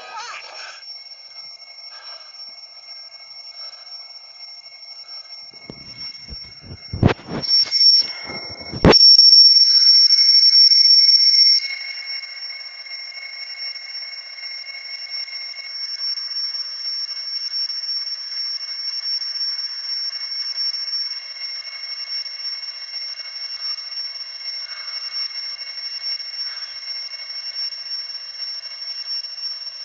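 Alarm clock ringing with a steady high tone. A few knocks come about seven to nine seconds in, followed by a louder stretch of ringing lasting about three seconds.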